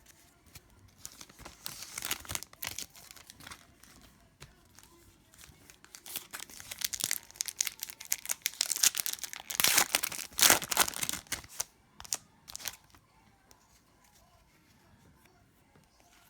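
A trading-card pack wrapper being torn open and crinkled by hand, in two spells of crackling, the second and louder one about six to eleven seconds in, followed by a few sharp crinkles and then quiet.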